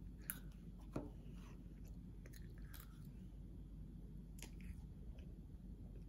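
A child chewing a mouthful of soft tiramisu: quiet, wet mouth sounds with a few light clicks and smacks, the sharpest about a second in.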